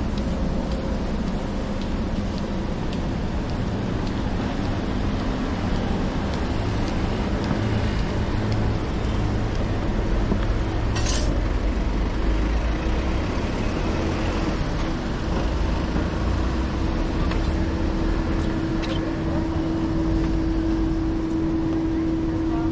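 City street traffic: a steady low rumble of passing road vehicles. There is a short hiss about eleven seconds in, and a steady hum comes in around the middle and grows louder toward the end.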